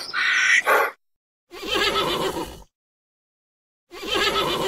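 A horse whinnies twice, each call about a second long and starting roughly two and a half seconds apart. A different short sound carried over from before ends about a second in.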